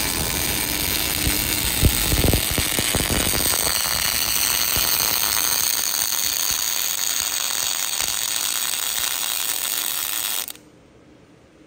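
Robotic MIG welding arc crackling and sizzling steadily as the torch lays a bead along steel. It cuts off abruptly about ten and a half seconds in.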